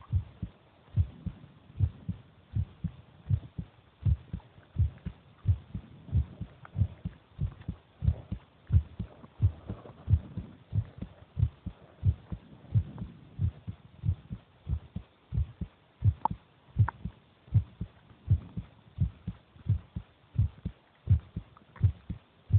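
A person's heartbeat, recorded close to the chest: a steady rhythm of low paired thumps (lub-dub), about three beats every two seconds.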